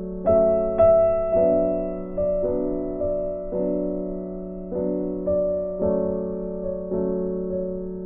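Background music: a slow, gentle piano melody, each note struck and left to fade before the next.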